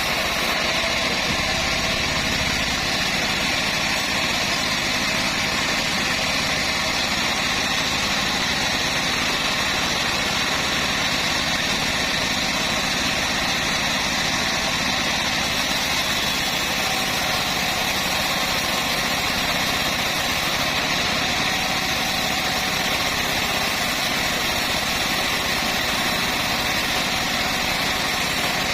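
Homemade bandsaw sawmill running steadily, its drive engine holding an even, continuous drone with no change in speed.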